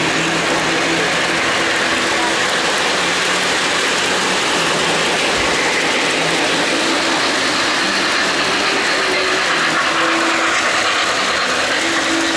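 O-gauge model train cars rolling past on three-rail track, a steady rumble of wheels on rail with a faint motor hum.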